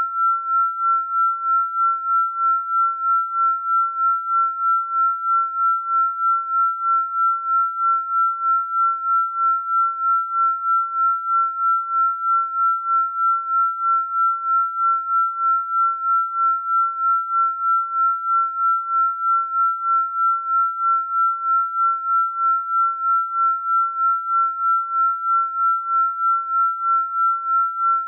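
A single steady, high-pitched electronic pure tone, swelling and fading evenly about three times a second.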